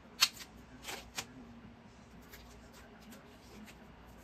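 Hands fastening zip ties on thin metal wire H-stakes: a sharp click about a quarter second in, two smaller clicks around a second in, then faint ticks and rustling.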